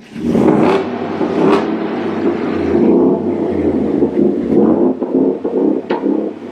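2021 Ford F-150's engine running through an AWE aftermarket cat-back exhaust, a loud, steady exhaust rumble that comes in suddenly at the start, heard inside a concrete parking garage. Two sharp clicks sound over it, one about a second and a half in and one near the end.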